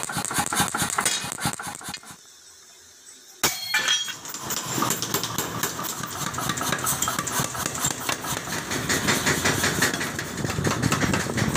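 Mechanical power hammer running and pounding steel in rapid, steady strokes, with a short drop-out about two seconds in that ends in a single sharp clank.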